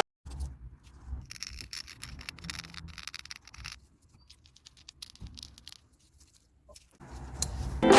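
Packaging being handled and opened: crinkling, rustling and scraping with light ticks, densest in the first few seconds and thinning out after that. Music fades back in near the end.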